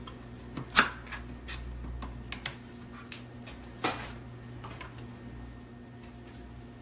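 Scattered light clicks and knocks of a metal can and a plastic measuring cup being handled on a kitchen counter while tomato sauce is measured out. The loudest knocks come about a second in and near four seconds, over a low steady hum.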